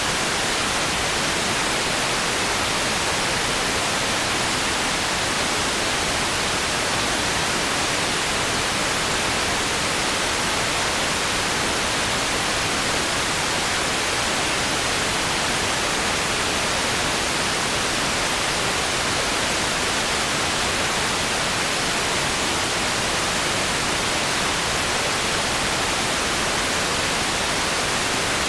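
A steady, even hiss of static noise, with no other sound in it.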